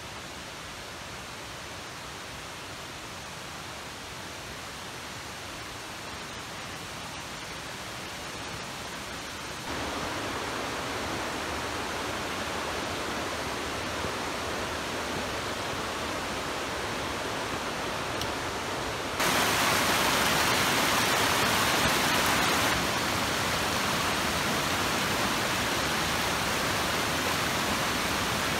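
Spring-fed forest stream running over rocks, a steady rushing of water that gets louder in sudden steps about ten seconds in and again about twenty seconds in.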